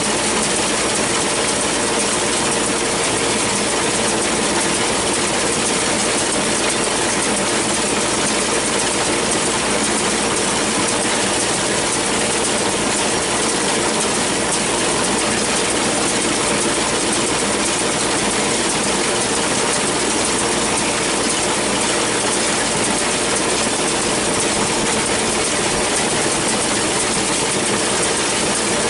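John Deere 6400 tractor engine running steadily while pulling a New Holland 648 round baler, with the baler's pickup and drive running mechanically along with it.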